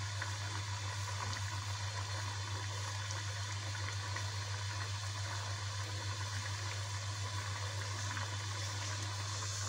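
A pot of rice, potatoes and tomatoes in water bubbling as it comes to a full boil, a steady hiss with fine popping, over a steady low hum.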